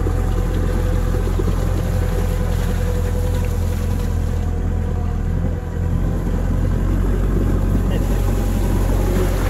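Tractor engine running steadily as it drives along a muddy track, a continuous low drone with a steady hum above it and a brief dip a little past halfway.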